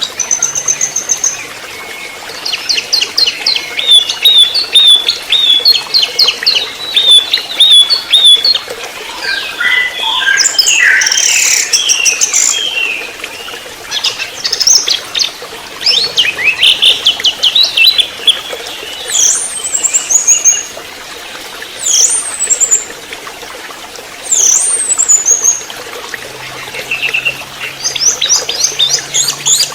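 Young spotted orange-headed thrush (anis merah trotol) singing a loud, varied run of rapid trills, repeated whistled notes and sharp rising-then-falling calls, over a steady hiss like running water.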